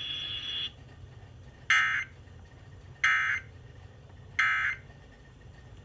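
Emergency Alert System end-of-message data bursts heard over FM radio: three short bursts of digital tones, evenly spaced about 1.3 seconds apart, marking the end of the alert.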